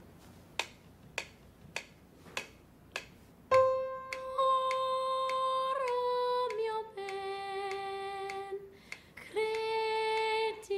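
Wind-up pendulum metronome ticking steadily, about one tick every 0.6 seconds. About three and a half seconds in, a woman starts singing long held notes without words over the ticking, the notes moving down in steps with a short break near the end.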